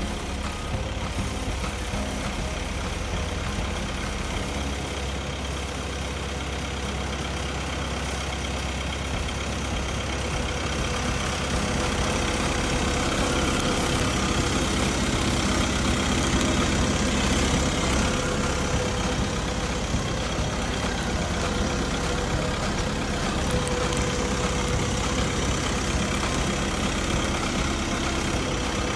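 Bandit SG-75 tracked stump grinder's engine running steadily, getting somewhat louder about twelve seconds in.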